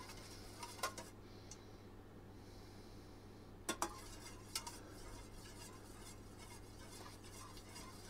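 Metal spoon stirring melting candle wax in a stainless steel bowl, with a few light clinks of spoon on metal, the loudest a pair about four seconds in. A faint steady low hum lies underneath.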